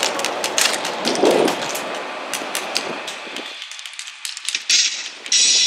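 Airsoft gunfire: sharp pops and cracks in irregular volleys, several a second, thinning out about three and a half seconds in. Music comes in just before the end.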